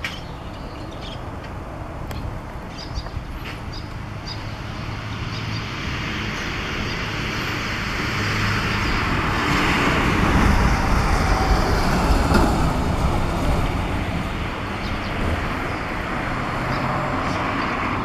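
Background road traffic noise, a steady rumble that swells to its loudest about ten seconds in and then eases off.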